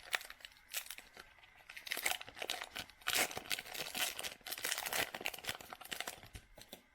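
Crinkling and rustling of a foil trading-card pack wrapper being handled, in dense irregular crackles that die down near the end.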